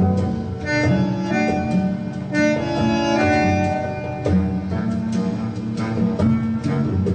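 Acoustic instrumental music from a 45 RPM vinyl LP, played on a turntable through the hi-fi system's loudspeakers, with a succession of separate pitched notes.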